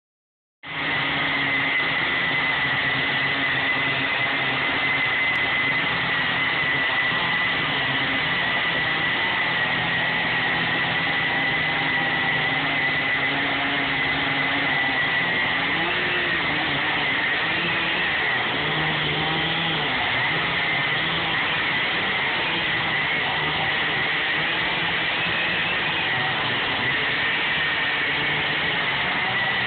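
Two two-stroke chainsaws running at full throttle while cutting through a big log: a large Stihl with a long bar, and a smaller saw alongside it. The engine pitch dips and wavers a little past the middle as the saws load in the wood.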